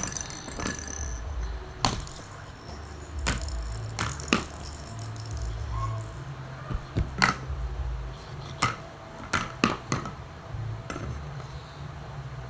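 Hard plastic clicks, knocks and rattles from a remote-control toy car being handled, about a dozen sharp taps spread unevenly over a low rumble.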